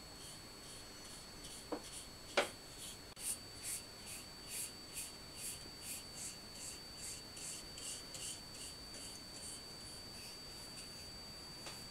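Paintbrush stroked back and forth along a wooden chair rung, a soft swishing about twice a second. Two light knocks come about two seconds in, and a faint steady high whine runs underneath.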